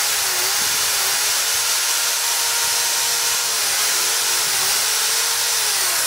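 Corded Black & Decker drill running steadily at speed, spinning a hair-dryer motor armature in its chuck while the worn armature shaft is sanded smooth with 150-grit sandpaper, giving a loud, even hiss.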